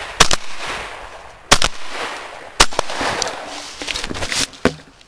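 Three shotgun shots, about a second apart, fired at a flushed pheasant in flight, each with a long rolling echo; a fainter crack follows near the end.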